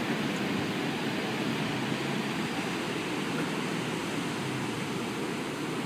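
Ocean surf breaking on a sandy beach: a steady, even wash of noise.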